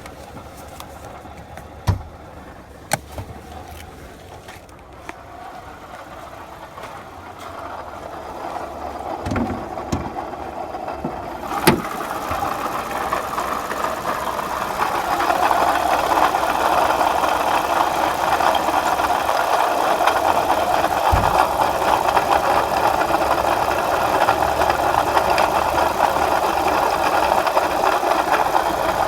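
2007 Lexus GS350's V6 engine running with a steady noise from a failing water pump. The noise grows louder over the first fifteen seconds or so, with a few sharp clicks and knocks during the first twelve.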